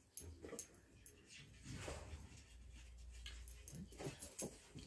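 Near silence, with a few faint, short whimpers from a dog.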